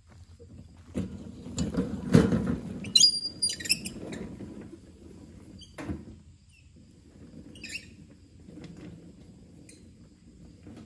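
Wheeled utility cart rolling and rattling over a rough woodland path as it is pushed away, loudest about two seconds in and fainter after six seconds. A few short high squeaks sound around three seconds in.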